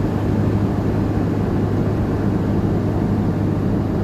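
Steady drone of a 4x4's engine and tyres cruising at about 80 km/h on a road.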